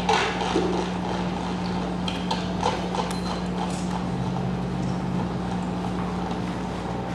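Metal bowls being handled on a concrete floor: a clatter as one is picked up, then scattered light knocks and clinks with a brief metallic ring, over a steady low hum.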